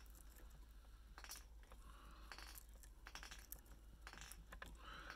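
Near silence with faint, scattered small clicks and rustles of hands working tying thread and a feather at a fly-tying vise.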